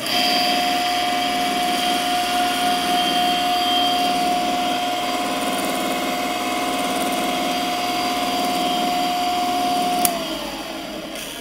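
Wolf Blazer 6-inch round-knife textile cutter's electric motor switched on with a click and running with a steady whine, its round blade spinning. About ten seconds in it is switched off with a click and the whine falls as the motor winds down.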